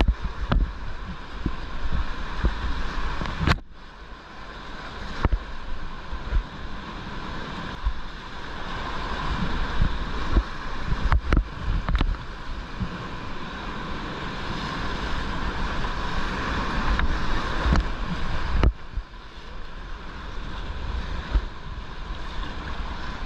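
Whitewater rapids rushing all around a kayak, with frequent splashes and sharp knocks of water against the camera close by. The noise drops away briefly twice.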